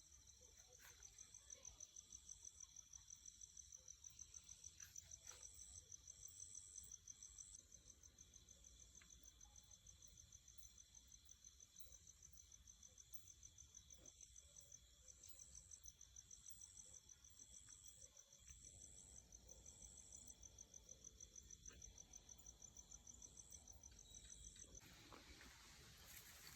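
Faint insect trilling: one steady, rapidly pulsing high trill with a second, higher trill in short repeated bursts, both stopping shortly before the end.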